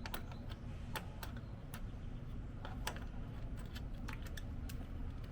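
Irregular light clicks and taps from hand work on the truck's parts, over a steady low rumble.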